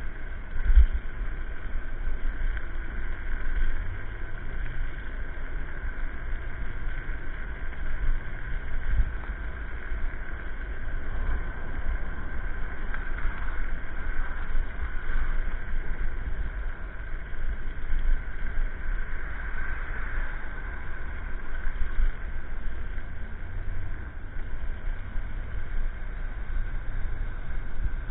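Electric scooter ride heard from a camera on the rider: wind buffeting the microphone and road rumble with small jolts, over a steady high whine.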